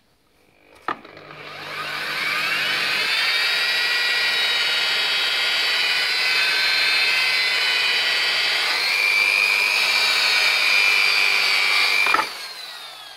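Electric buffing wheel switched on about a second in, spinning up to a steady high whine as a plastic taillight lens is polished against it, then switched off near the end and winding down.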